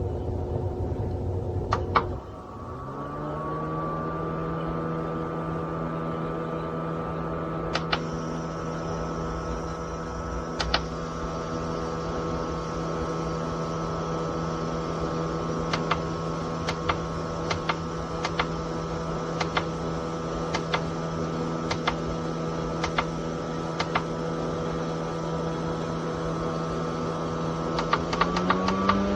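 Small electric fan motor of a USB desktop evaporative air cooler switched to a new speed with a click and running with a steady whirring hum. Sharp clicks come now and then, and near the end the hum rises in pitch as the speed changes again.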